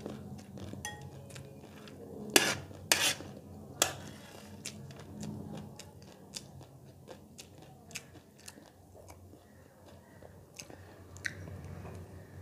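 Metal spoon clinking and scraping against the plate while scooping up chatpate, with the sharpest clinks about two to four seconds in and lighter crunchy clicks after.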